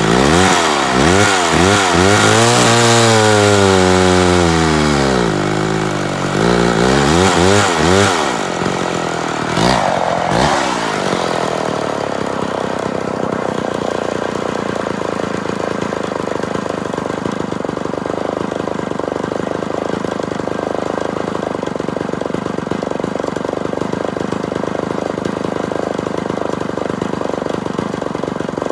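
Homelite XP1000 two-stroke chainsaw, running on a clone Tillotson carburettor, cutting into a log for about the first ten seconds, its engine pitch swinging up and down as it revs and bogs in the cut. After that it settles to a steady idle, which the owner thinks is set a little high.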